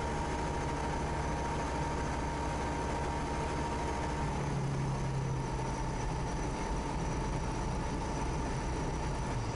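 Diamond DV20 Katana's Rotax 912 engine and propeller running steadily, heard inside the cockpit on final approach, with a shift in the low engine note about four seconds in.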